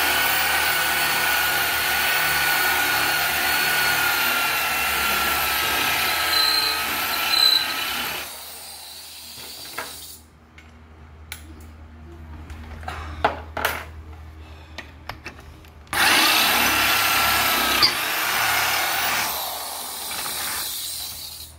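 Corded electric drill boring through steel angle bar with a freshly sharpened twist bit, which throws chips as it cuts. Its motor whine holds steady for about eight seconds and stops, a few handling clicks follow, then the drill runs again for about five seconds and spins down near the end.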